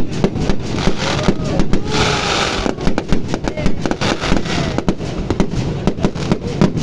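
Fireworks display: a rapid, continuous string of bangs and pops, with a brief burst of hissing crackle about two seconds in.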